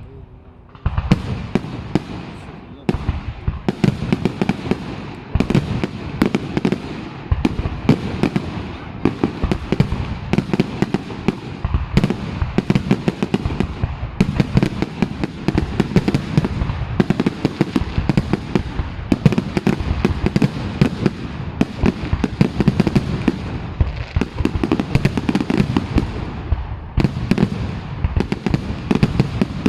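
Fireworks display going off: a dense, near-continuous barrage of bangs and crackles over a low rumble, beginning after a brief lull about a second in.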